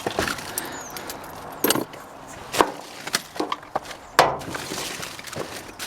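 Scattered knocks and clinks of scrap wire and debris being handled and shifted in a dumpster, with rustling in between.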